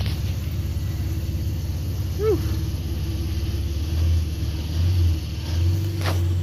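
Chevrolet Camaro's 3.6-litre V6 with an aftermarket exhaust idling with a steady low pulse, given three short, light throttle blips in the second half.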